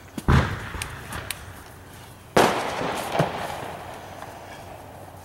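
Three sharp knocks or bangs: one near the start, another about two and a half seconds in, and a smaller one shortly after.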